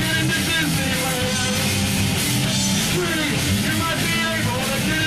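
A rock band playing live: electric guitar over drums and cymbals, played steadily without a break.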